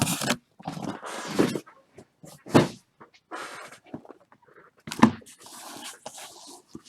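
Irregular rustling and tapping from cardboard boxes and card packs being handled on a table, with two sharper knocks, one a little after two seconds in and one about five seconds in.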